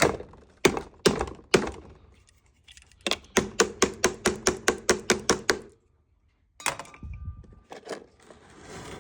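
Buttons on a Cuisinart coffee maker's control panel being struck with a finger, clicking. A few separate clicks come first, then a fast run of about five clicks a second for a couple of seconds.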